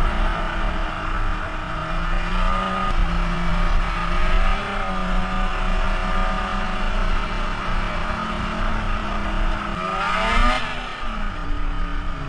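Snowmobile engine running at a steady cruising pitch under way, revving up and back down about ten seconds in. A low rumble of wind on the helmet-mounted microphone runs underneath.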